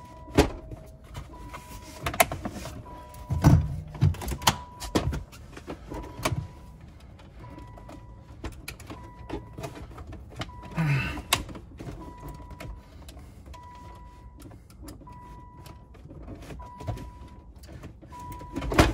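A car's electronic warning chime beeps evenly, a half-second tone about every second and a half. Over it come sharp clicks and knocks of plastic console trim being pressed and fitted into place, the loudest a few seconds in.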